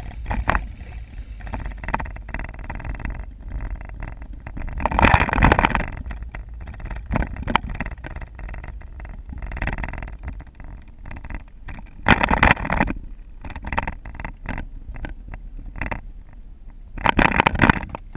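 Car driving slowly: a steady low rumble of engine and road noise, broken by three loud bursts of noise about five, twelve and seventeen seconds in, with scattered short knocks between them.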